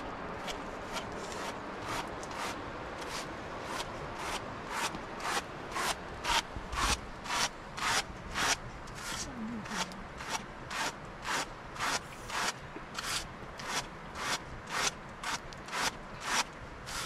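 Hand carders brushing raw wool, a steady rasping stroke about twice a second that becomes clear a few seconds in.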